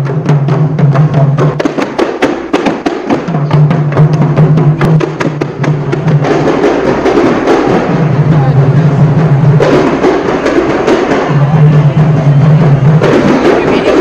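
Kompang, Malay hand-beaten frame drums, played by a group in a fast interlocking rhythm of sharp slaps. A low hum comes and goes in stretches of about a second and a half.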